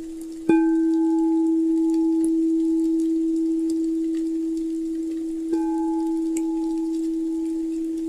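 Crystal singing bowl ringing a steady, pure low tone, struck twice about five seconds apart. Each strike adds higher overtones that fade away. Faint fire crackles sound underneath.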